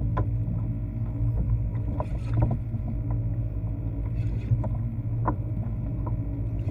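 Fishing kayak on open water: a steady low hum with a few short knocks scattered through it.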